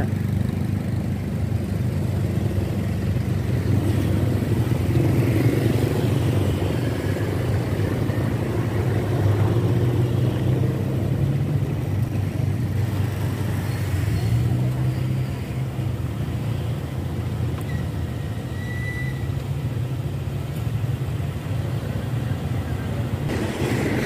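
Motorcycle engine running as it is ridden slowly through town traffic, a continuous low rumble that eases off a little past the middle.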